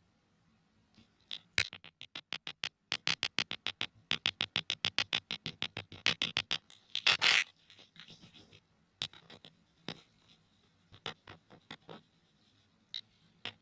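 Earphones worked close to the microphone as a sound effect, making sharp clicks. A fast, even run of about five clicks a second gives way to slower, scattered clicks after about seven seconds.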